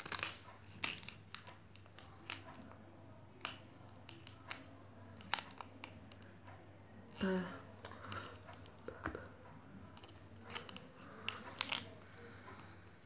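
Foil wrapper being handled and peeled open, crinkling and tearing in scattered small crackles and clicks.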